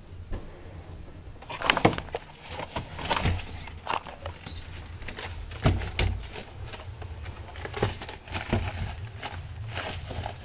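A Nile monitor scuffling in dry sand and bark as it seizes and struggles with a live mouse: irregular scrapes, scratches and knocks, the loudest about two seconds in and again about six seconds in.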